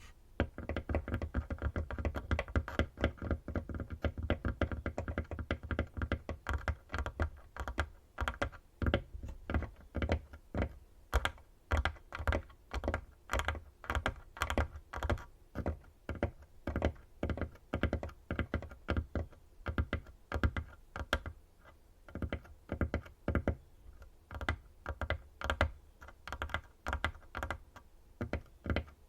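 Fingernails tapping rapidly on a tabletop: a fast run of sharp clicks like typing, which breaks into quick rolling flurries after several seconds.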